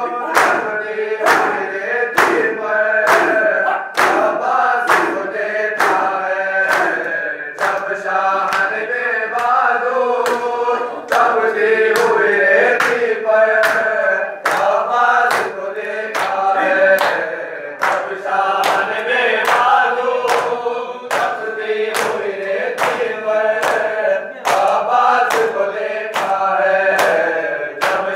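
A group of men chanting a noha together, with the sharp slaps of open hands beating on bare chests (matam) keeping a steady beat of a little more than one a second.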